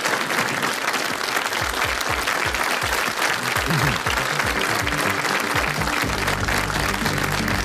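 Studio audience applauding, with music coming in about six seconds in.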